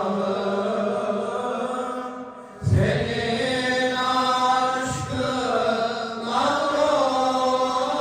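Dergah ilahi, a Sufi devotional hymn, chanted by voices in long, slowly gliding held notes. A brief lull comes just before three seconds in, and low thumps fall at about three and five seconds in.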